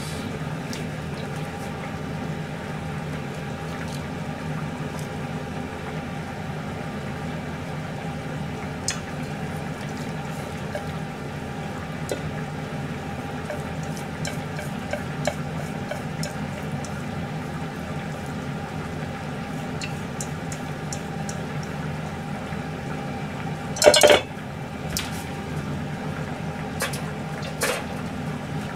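Spoon scraping and tapping in a stainless steel mixing bowl as a salad filling is spooned onto sandwich bread, with light scattered clinks over a steady background hum. Near the end comes one loud metallic clatter of the bowl and utensils.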